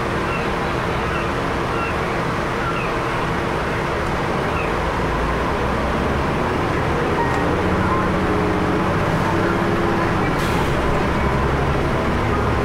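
Steady drone of a bus's engine and tyres on the road, heard from inside the passenger cabin while it drives, growing slightly louder about halfway through.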